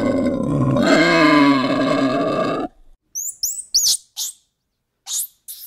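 A loud, long animal call with a wavering pitch cuts off suddenly about two and a half seconds in. It is followed by a string of short, very high squeaks and chirps.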